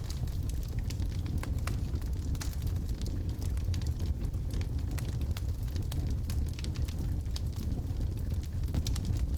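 Wood logs burning in a fireplace: a steady low rumble of the flames with frequent sharp, irregular crackles and pops.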